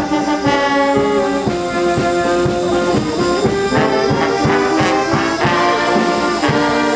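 Brass band playing a tune in held chords over a steady beat.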